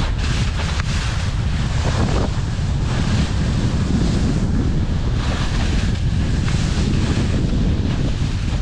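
Strong wind buffeting the microphone: a steady, heavy low rumble.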